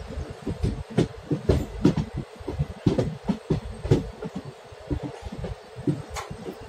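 Passenger train running: wheels clattering over the rails and the coaches rattling, with irregular sharp knocks over a low rumble.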